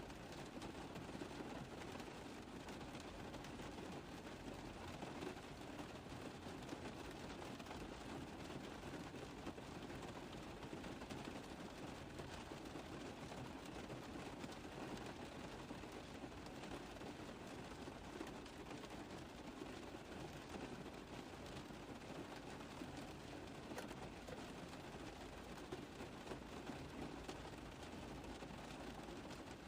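Steady rain pattering on a car roof: a dense, even run of small drop impacts that neither builds nor eases.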